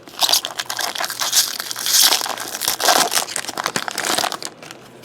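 Crinkling and tearing of a trading-card pack's foil wrapper being handled, a dense crackle that runs for about four and a half seconds and stops.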